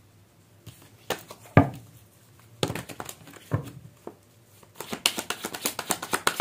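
Tarot cards being handled: scattered taps and slaps of cards, with one sharp knock about a second and a half in, then from about five seconds in a quick, continuous run of clicks as the deck is shuffled.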